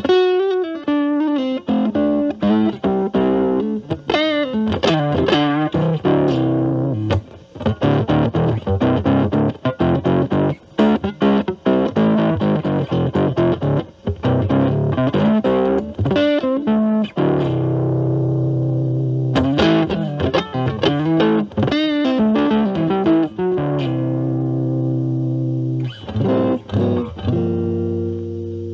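Electric guitar with single-coil pickups played through an Ibanez Super Metal mini distortion pedal into a Marshall Valvestate amp's clean channel, the distortion cleaned up to a light grit. Quick picked note runs and strums give way after about 17 seconds to several held, ringing chords.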